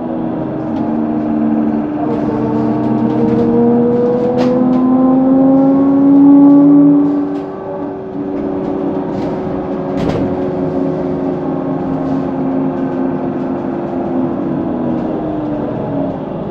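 Whine of a HESS Swisstrolley 4 trolleybus's electric traction drive: several tones rise in pitch as it accelerates, the loudest about seven seconds in, then hold steady and ease off. A couple of sharp clicks or knocks come through, one about four seconds in and one about ten seconds in.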